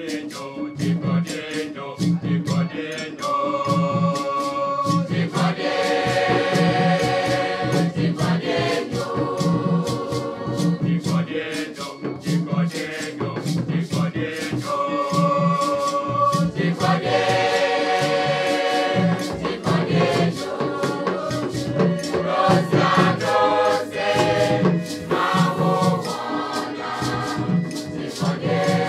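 Mixed choir singing in several-part harmony over a steady rhythm of hand drums and the shake of beaded gourd rattles.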